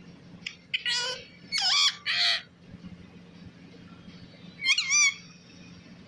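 Rose-ringed parakeet making shrill, pitch-bending calls: three in quick succession in the first half, then one more about five seconds in.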